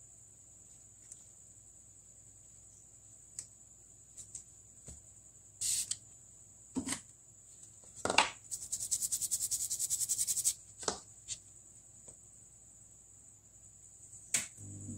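Scattered clicks and taps of small tools at a phone repair bench, with about two seconds of rapid scratching strokes past the middle, over a steady high-pitched whine.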